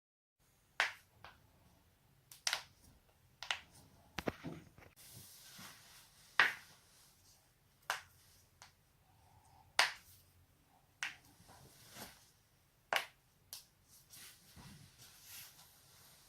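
Neck joints being cracked: a series of sharp single pops, about a dozen, irregularly spaced roughly a second apart.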